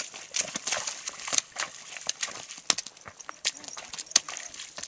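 A ridden horse's hooves stepping and shifting on stony ground: a scatter of irregular clops and knocks.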